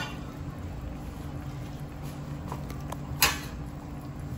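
Steady low hum of a kitchen, with a few light clicks and one sharp knock about three seconds in.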